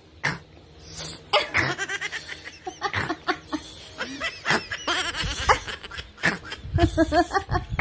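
A young boy's mock snoring, a run of short, sharp breathy bursts, mixed with laughter.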